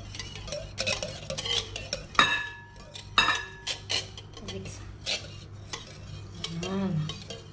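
Metal wire whisk beating a runny egg batter in a glass bowl: a quick, continuous clicking and sloshing of the tines against the glass. Two louder clinks ring out about two and three seconds in as the whisk strikes the bowl.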